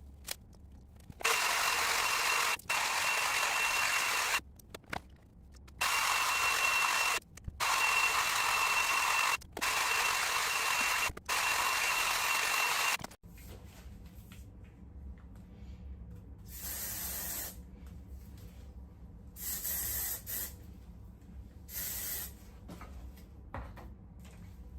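Hair dryer brush blowing: a steady rush of air with a high motor whine, in several stretches broken off by abrupt cuts. After about 13 seconds it stops, and only a few short, quieter rushes of air follow.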